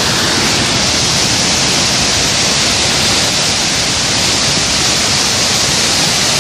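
A tall waterfall, about 140 m high, falling close by: a loud, steady rush of water with no let-up.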